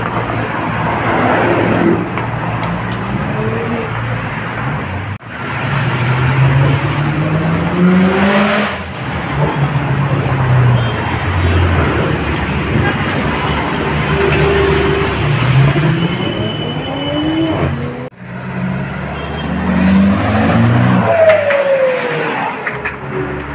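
Cars driving past one after another, engines revving and rising in pitch as they accelerate through the gears, with a falling engine note as one passes near the end. The sound breaks off briefly twice.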